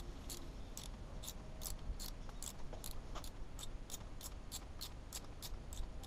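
A 1/4-inch drive ratchet wrench clicking in an even rhythm, about two or three clicks a second, as it turns a twist drill held in a small chuck, drilling out a stripped bolt hole in an aluminium cylinder head.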